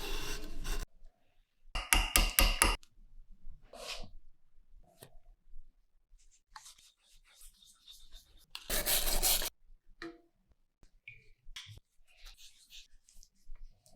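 Hand work on the metal parts of an old 1897 shotgun: short bursts of scraping and rubbing with a few light clicks. There is a quick run of strokes about two seconds in and a longer, louder scrape about nine seconds in.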